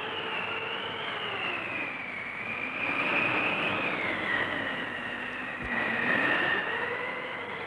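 Howling, whistling wind: a rushing noise with several whistling tones that slowly rise and fall, swelling a little twice.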